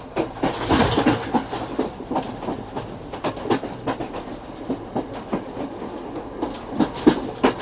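Passenger train heard from aboard while it runs: the wheels clatter irregularly over the rail joints and the carriage rattles, with a brief rush of noise about a second in.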